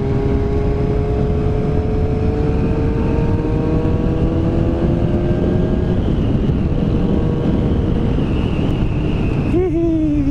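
Honda CBR600RR inline-four engine running under the rider's helmet mic with heavy wind and road rush, its note climbing slowly and steadily as the bike gathers speed. Near the end the note fades back and briefly rises and falls.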